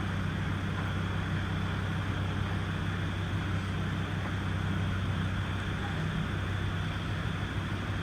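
A vehicle engine idling steadily, a low even hum with no change in pitch, over a steady hiss of background noise.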